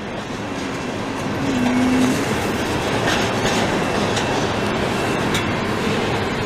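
Freight train tank cars rolling past, their steel wheels clicking and clattering over the rail joints in a steady rumble that grows louder over the first couple of seconds.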